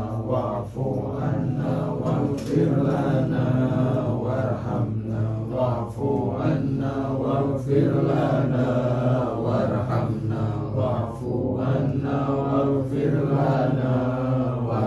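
A group reciting Arabic prayers together in unison as one unbroken chant.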